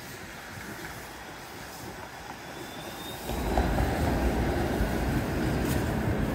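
Low rumble of a passing vehicle, growing suddenly louder about three seconds in.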